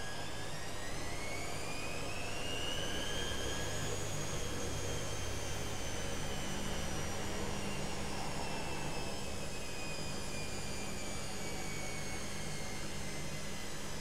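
Candy GrandÓ GO145 front-loading washing machine running, its motor and drum whining as the drum turns. The whine climbs in pitch for about four seconds, then slowly falls, over a steady low hum.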